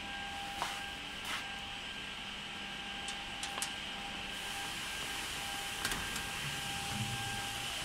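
Steady hum and high, even whine of a running CNC boring machine, with a few light clicks scattered through.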